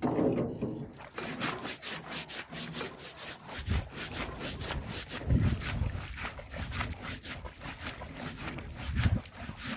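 Rapid back-and-forth scrubbing strokes, about four a second, scouring algae off a fish trap, with a few dull thumps in between.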